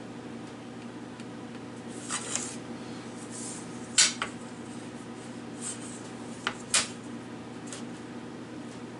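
A handful of light clicks and knocks of objects being handled and set down on a workbench, the sharpest about four seconds in and two more close together near seven seconds, over a steady low hum.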